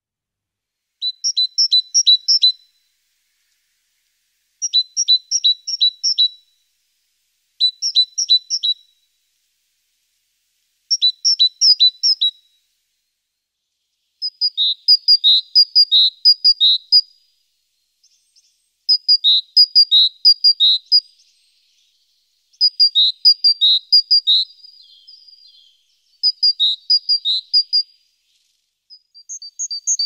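A small songbird singing the same short phrase over and over: a quick run of repeated high, sharp notes, about nine phrases a few seconds apart with silence between.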